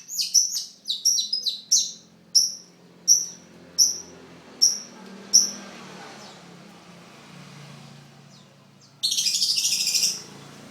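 Long-tailed shrike (pentet) calling: a fast run of sharp, high chirps that slows to single calls about every 0.7 s until about five and a half seconds in, then a dense, harsh chatter lasting about a second near the end.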